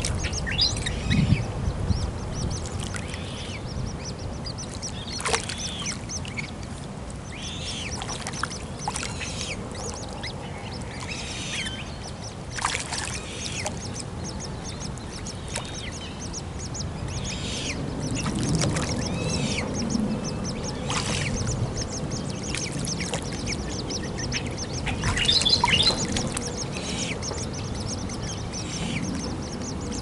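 Waterbirds calling at a pond: short harsh calls every second or two, with a louder cluster of calls about twenty-five seconds in, over a low steady rumble.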